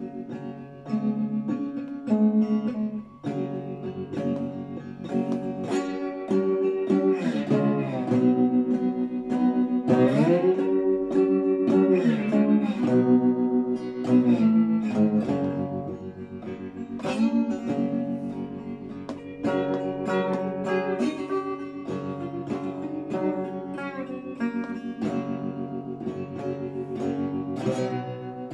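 Slide guitar played on a wooden box guitar with a metal slide: plucked notes that ring on, with the pitch gliding up and down between notes. The playing grows louder about a second in.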